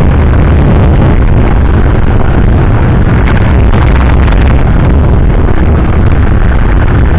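Motorcycle riding at road speed, its engine and wind rush heard through a camera mounted on the bike: a loud, steady rumble with no breaks.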